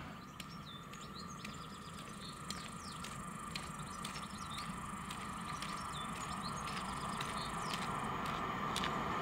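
Small birds chirping in repeated short calls over the low rumble of a distant electric freight train approaching, the rumble slowly growing louder.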